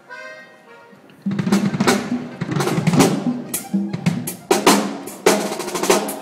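Drum kit played in a sound check: after about a second, a burst of snare and bass drum beats and fills, with several loud ringing strikes.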